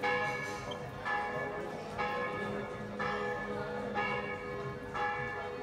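Church bell tolling, about one stroke a second, each stroke ringing on as the next is struck.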